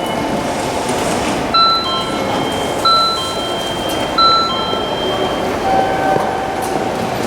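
Electronic platform chime sounding three short bright strikes about a second and a half apart, followed by a few longer held tones, over the steady hum and rumble of a Shinkansen platform.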